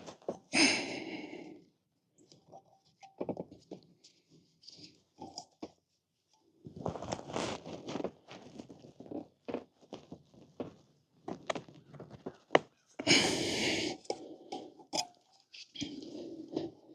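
Rubber tire of an 8.5-inch electric scooter rear wheel being pried off its rim by hand and with tire levers: irregular rubbing, scraping and clicking, with two louder strained squeaks, one about a second in and one near the end.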